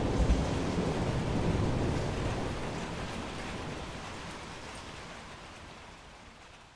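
Steady rain with a low rumble of thunder at the start; the rumble dies away and the whole storm sound then fades out gradually.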